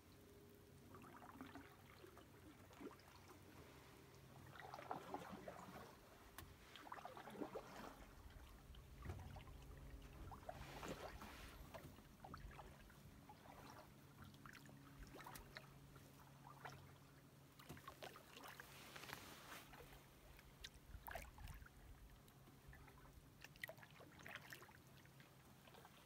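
Canoe paddle strokes in calm water: soft swishes and drips every few seconds, faint.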